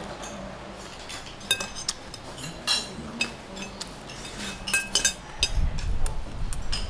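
Metal fork and spoon clinking and scraping against a plate during a meal: several sharp, separate clinks with a short ring.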